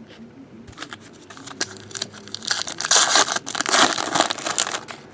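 Trading card pack wrappers crinkling and tearing as packs are opened, loudest for a couple of seconds in the middle, with light clicks of cards being handled before it.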